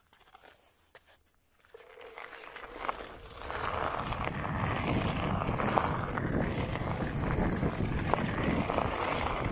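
Onewheel Pint electric board setting off on a gravel trail. A steady motor whine comes in about two seconds in. A rumble of the tyre on gravel and wind on the microphone then grows louder as it picks up speed, and holds steady.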